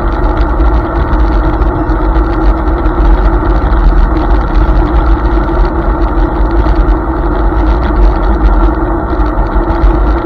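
Steady, loud rumble and rush of riding a Hiboy S2 Pro electric scooter at speed: wind buffeting a microphone mounted on the scooter, mixed with tyre and road noise.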